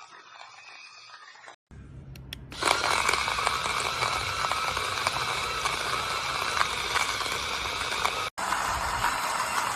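Portable battery-powered coffee grinder running, starting about three seconds in with a steady whirring hum and the noise of beans being ground; the sound breaks off for an instant near the end and resumes.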